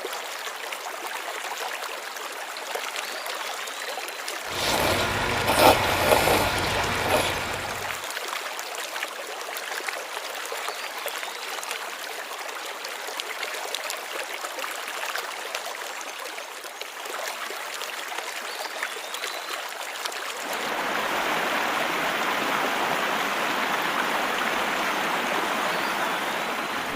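Valley creek running over a stony bed: a steady rush of flowing water. About five seconds in, a louder few seconds of low rumble and sharp knocks rises over it. About twenty seconds in, the rushing steps up louder and fuller.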